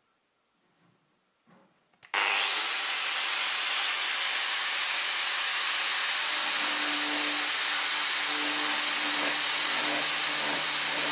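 Cordless angle grinder switched on about two seconds in, running at a steady high whine and grinding into the wood at the edge of a hole in a tabletop. Its pitch dips and lower tones come and go under load.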